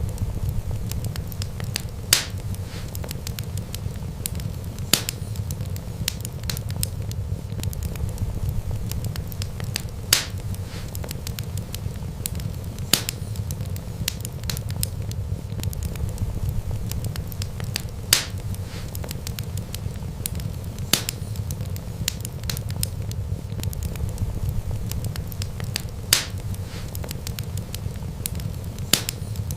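Wood fire burning with a steady low rumble, and sharp crackling pops every few seconds.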